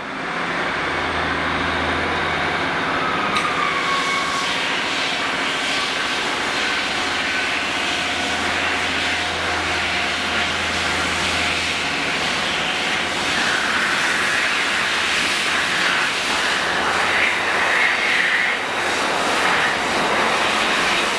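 Freightliner Class 66 diesel locomotive's two-stroke engine running as it hauls a container freight train slowly through the station, with a steady low hum from the engine and the rumble of the wagons growing as it comes closer.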